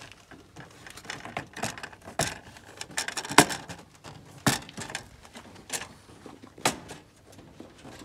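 Plastic retaining clips snapping and a Hyundai Terracan's perforated front grille panel rattling as it is pressed back into place by hand: a run of irregular sharp clicks and knocks, the loudest about three and a half seconds in.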